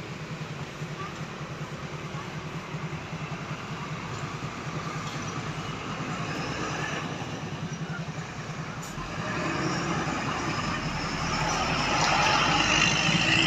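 Vehicle engine running steadily, with road and engine noise building from about nine seconds in as a vehicle draws closer.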